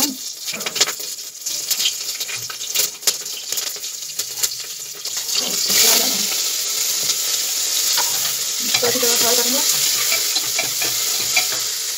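Spices frying in hot oil in an aluminium pressure cooker, with a metal spatula scraping and clicking against the pan. About six seconds in, the sizzle jumps louder into a steady hiss as chopped onion goes into the hot oil, and the stirring goes on.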